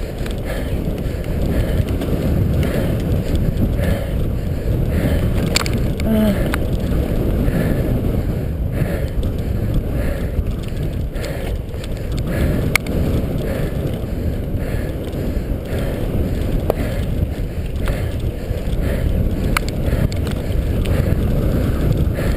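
Cyclocross bike ridden hard over dirt and grass: a steady rumble of knobby tyres and wind buffeting the microphone, with a few sharp clicks and rattles from the bike.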